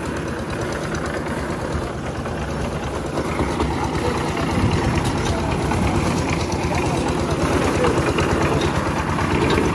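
Engine of a portable drum concrete mixer running steadily with a fast, even beat, as the mixer discharges concrete down its chute; a hoe scrapes through the wet concrete.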